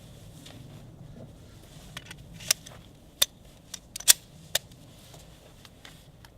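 A few sharp clicks and clacks of a Glock 21 pistol being handled during a reload after running empty, four louder ones between about two and a half and four and a half seconds in.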